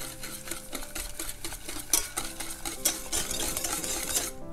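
Metal wire whisk beating eggs and sugar in a stainless steel saucepan: rapid, irregular scraping and clicking of the wires against the pan. It stops abruptly shortly before the end.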